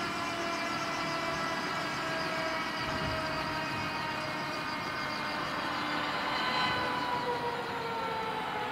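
Eurocopter AS365 Dauphin helicopter running on the ground with its main rotor turning. Its twin turbine engines give a steady whine that slowly falls in pitch.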